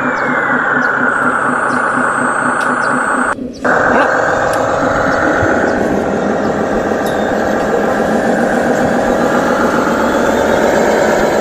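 Radio-controlled Scania-style model dump truck running, a steady engine-like drone that wavers in pitch, with a brief drop-out about three and a half seconds in.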